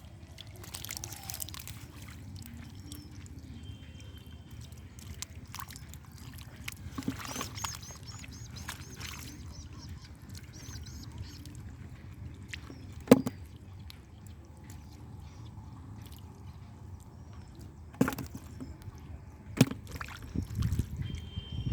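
Shallow muddy water sloshing and splashing as hands dig and grope through it, with scattered small clicks and a few sharp slaps, the loudest about halfway through.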